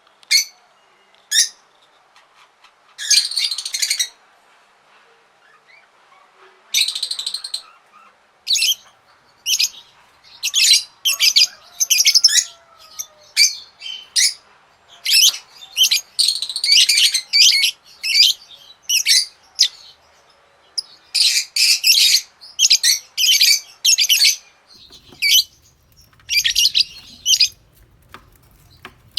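Parrots calling: a string of short, sharp chirps, with two longer harsh squawks near the start and a dense run of rapid calls in the middle. A faint low rumble comes in near the end.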